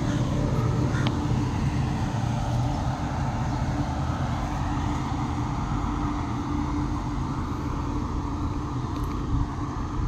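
Railway locomotive running along the track as it gathers speed, a steady low rumble and hum.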